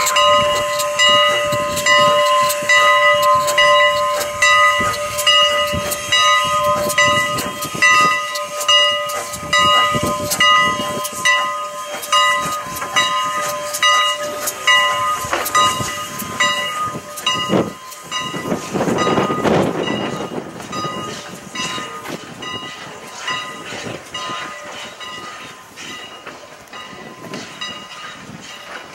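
Canadian National No. 89, a 2-6-0 steam locomotive, pulling a passenger train away, its exhaust chuffing in a steady beat while its bell rings. The bell stops about halfway through, and the train grows fainter as it moves off.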